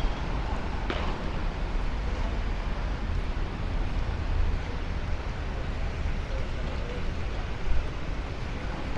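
Street ambience: a steady low rumble of traffic with indistinct voices of passers-by, and a single sharp click about a second in.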